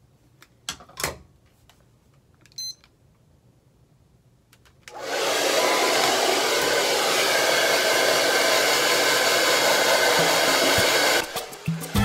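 Handheld CHI Touch 2 ionic hair dryer switched on about five seconds in, blowing a loud, steady rush of air on its highest heat setting. A short beep sounds shortly before it starts, and the sound cuts off abruptly near the end.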